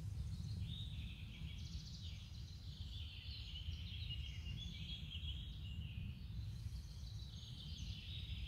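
Small forest birds chirping and singing over a low, steady rumble.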